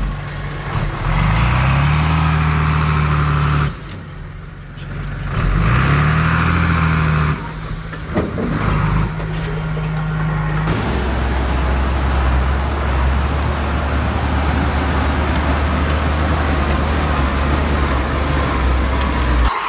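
Heavy diesel engine of earthmoving machinery revving up twice, each time dropping away abruptly a few seconds later, then running with a steady low drone that cuts off suddenly near the end.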